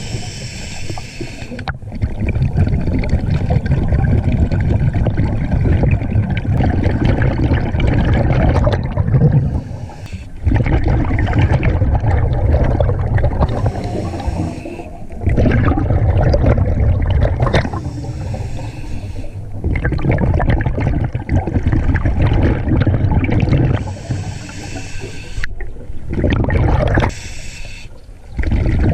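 Scuba regulator breathing underwater: short hissing inhalations alternate with longer low bubbling exhalations, several breath cycles in a row.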